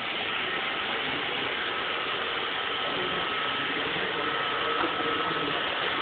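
iRobot Roomba robot vacuum running across a hard wooden floor: the steady whirr of its vacuum motor and brushes, with a faint high whine over it.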